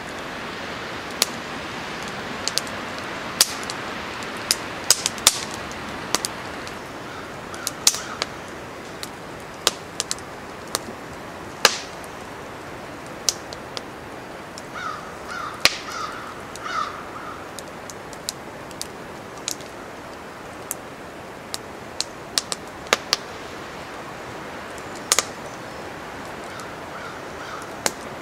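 Cedar kindling fire crackling with sharp, irregular pops over steady wind noise. A crow caws four or five times in quick succession about halfway through, with a few fainter caws elsewhere.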